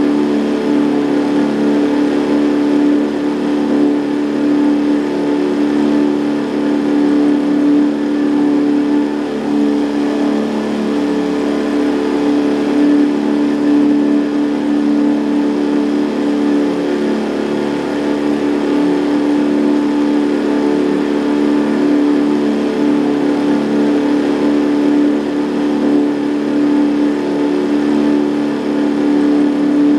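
Boat outboard motor running steadily at constant speed: an even drone whose pitch does not change.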